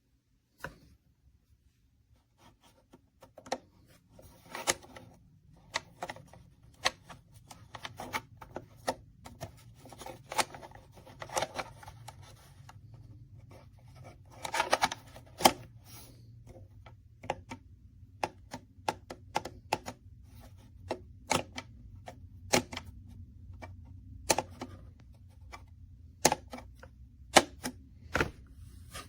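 Scattered, irregular clicks and taps of small hard objects being handled, with a faint low steady hum underneath.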